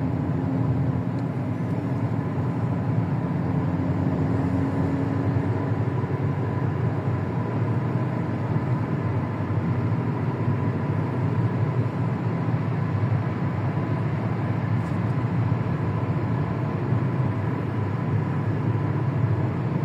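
Car engine idling steadily, an engine with a suspected misfire.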